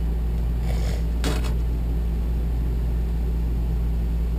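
Steady low drone of the motorhome's onboard generator running. There are two short sharp knocks about a second in.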